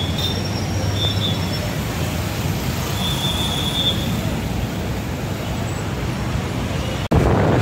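City street traffic: a steady rumble of passing vehicles with a few short, high tones over it. Near the end the sound cuts off abruptly and turns to a louder hiss of wind on the microphone.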